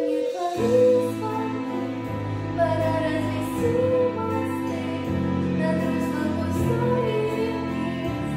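A young woman singing solo over instrumental accompaniment, her long held notes wavering with vibrato.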